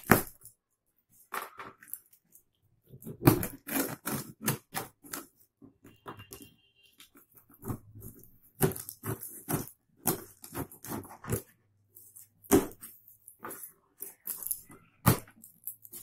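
Packing tape being slit and torn off a cardboard box: irregular crackling rips and rustles of tape and cardboard, coming in scattered bunches with a few sharp loud cracks.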